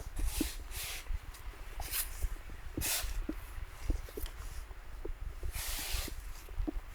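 Footsteps crunching through snow: uneven crunches about once a second, with one longer scraping crunch near the end.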